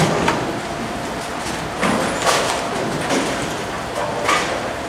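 Bowling-alley din: a steady rumble of balls rolling on the lanes, broken by a sharp knock at the start and clattering crashes about two seconds in and again near the end.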